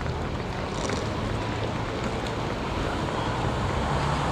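Steady city street ambience: a low rumble of traffic under an even wash of outdoor noise, growing slightly louder near the end.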